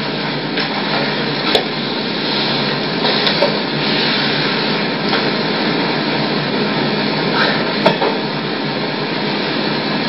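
A steady hiss of background noise, with a few sharp knocks and clicks as hand puppets are handled and swapped.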